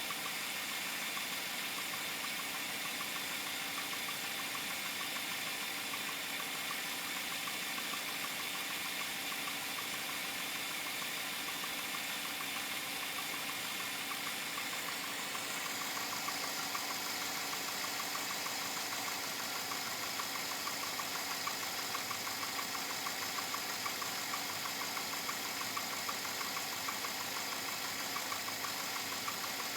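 2007 Chevrolet Avalanche V8 engine idling with a rapid, even knocking tick, which the owner suspects is engine knock or piston slap. The knock becomes more distinct about halfway through.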